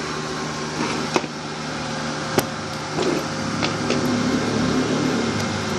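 Cooling fan of a Rhino MMA-120A inverter welding machine running with a steady hum, a sign the repaired machine is powered up again, with a few sharp clicks about one and two and a half seconds in.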